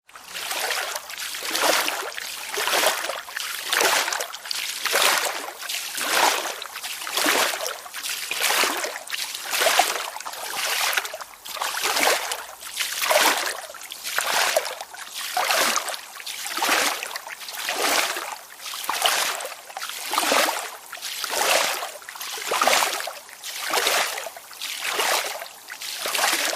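A swimmer's strokes splashing through the water in a steady rhythm, about one splash a second.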